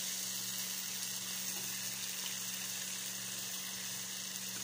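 Bok choy in sauce sizzling steadily in a frying pan on a gas burner, with a steady low hum underneath.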